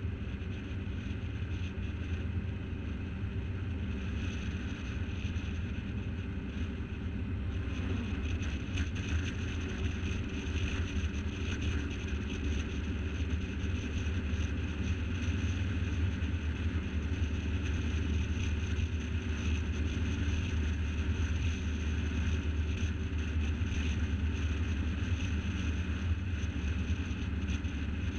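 A car driving at road speed: a steady low drone of engine and tyres with wind noise over the microphone, getting a little louder about eight seconds in.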